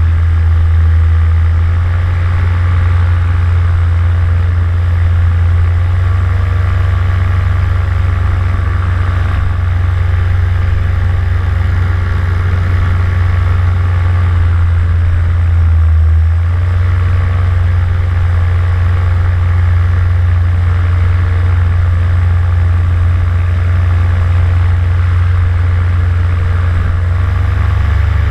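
Vittorazi Moster 185 two-stroke single-cylinder paramotor engine and propeller running steadily in flight, a loud steady drone.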